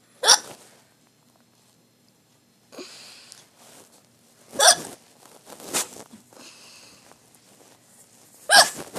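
A person hiccupping: three loud, sharp hiccups about four seconds apart, with a softer one between the second and third.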